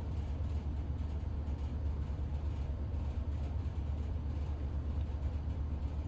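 Steady low background hum with a faint even hiss and no distinct events.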